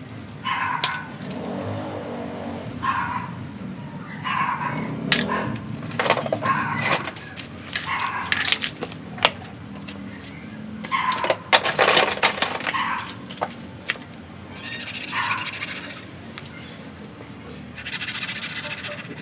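Hand tools scraping and picking at the roots and soil of a ficus bonsai stump, with sharp clicks and rasping scrapes. Short whining animal calls recur every second or two through it.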